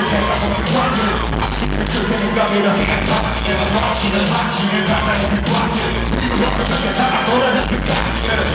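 Live hip-hop music through a concert PA: a loud, heavy bass beat with rappers rapping into microphones, heard from among the audience with fans yelling.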